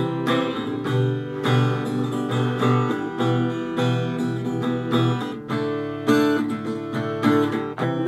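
Acoustic guitar strumming chords in a steady rhythm, with no voice.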